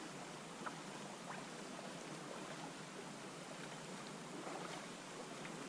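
Faint steady hiss of quiet river ambience on a slow-flowing river, with a couple of light ticks about a second in.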